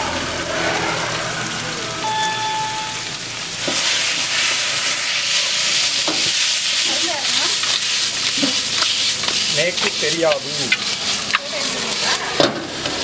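Raw chicken pieces sizzling as they fry in oil in a metal wok, the sizzle growing suddenly louder about four seconds in. A metal ladle scrapes and clanks against the wok as the chicken is stirred and tossed.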